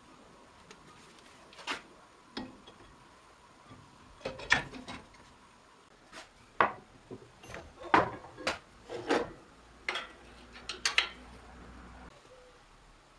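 Irregular clunks, clicks and knocks of metal and wooden workshop parts being handled and set in place, as a power tool with a metal base plate is fitted to a lathe.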